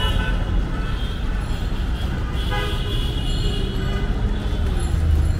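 Vehicle horns tooting over a steady low rumble of street traffic.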